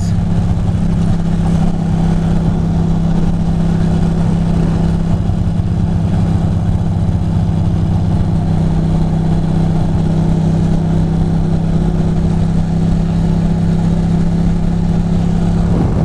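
2006 Ducati Monster 620's air-cooled L-twin engine running at a steady cruising speed, holding an even pitch throughout, with wind and road noise underneath.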